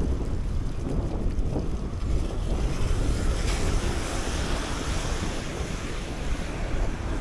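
Wind buffeting the microphone of a camera on a moving bicycle, over a steady hiss of tyres on a wet, slushy road. The hiss swells for a moment around the middle.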